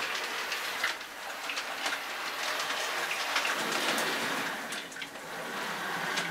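Model railway A4 locomotive running along the track: a steady hiss from its motor and wheels, dotted with small irregular clicks.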